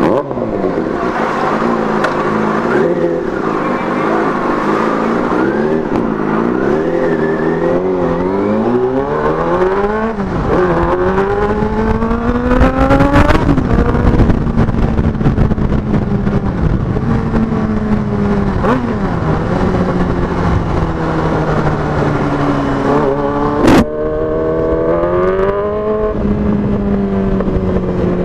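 Yamaha R6 inline-four engine through an SC Project exhaust, pulling hard under riding load: its pitch climbs, drops, and climbs again several times as it is revved up through the gears, then settles and falls away. One sharp crack sounds near the end.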